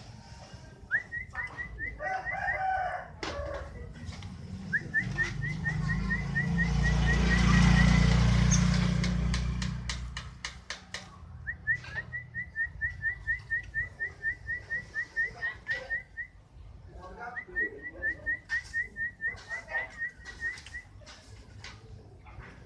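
Canary singing in four phrases of quickly repeated, rising chirps, several a second, with short pauses between them. A low rumble swells and fades in the middle.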